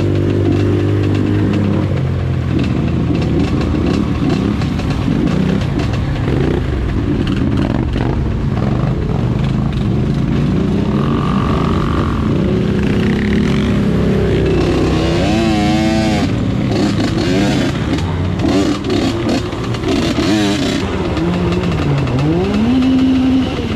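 Off-road vehicle engine running while riding, revving up and down in pitch, with scattered rattling knocks over rough ground.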